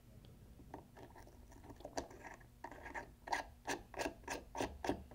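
Small metal top cap of a rebuildable dripping atomizer being twisted down by hand onto its threads: faint scraping clicks, a few scattered ones at first, then a regular run of about three a second in the second half.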